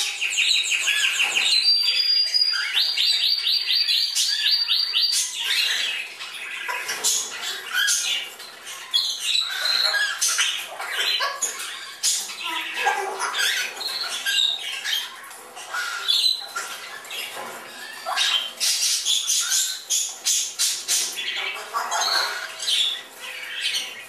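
Young African grey parrots calling, several at once: a fast rattling trill in the first few seconds, then overlapping squawks, whistles and chirps.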